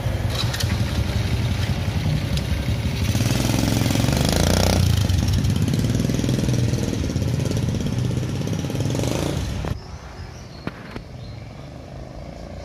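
Mini trail motorcycle with a Honda Supra single-cylinder four-stroke engine running under throttle and revving up a few seconds in. The engine sound drops away sharply about ten seconds in.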